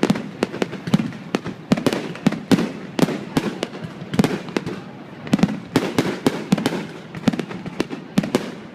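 A fireworks display bursting: a quick, uneven run of sharp bangs, several a second, each trailed by a low rumble.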